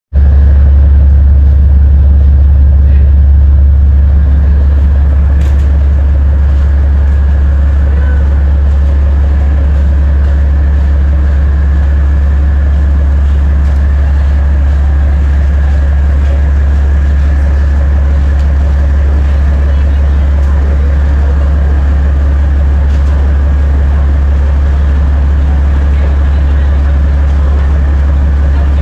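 Loud, steady low drone of the RoRo ferry's running engine machinery, heard inside its enclosed car deck.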